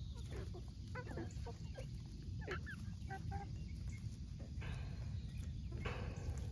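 A flock of backyard chickens clucking in short, scattered calls while they peck at napa cabbage leaves, over a steady low rumble.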